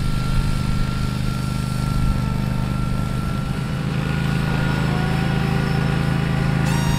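Engine running steadily at an even speed. Music comes in near the end.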